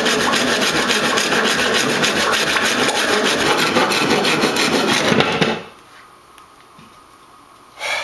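Hand saw cutting through laminated particle board with fast back-and-forth strokes, finishing a circular hole; the sawing stops abruptly a little over five seconds in.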